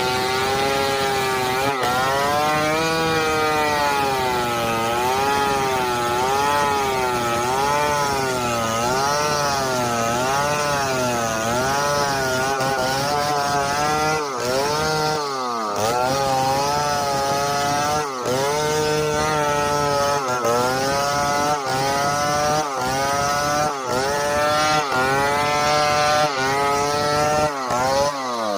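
Two-stroke chainsaw cutting wood. Its engine pitch rises and falls again and again, about once a second and more quickly in the second half, as the saw bogs under load in the cut and revs back up.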